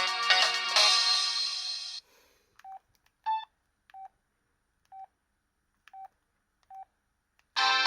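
Samsung SCH-A870 phone: a polyphonic ringtone plays and cuts off about two seconds in. Then come six short keypad beeps, roughly one a second, one of them louder and higher, as the keys are pressed between ringtones. Another ringtone starts near the end.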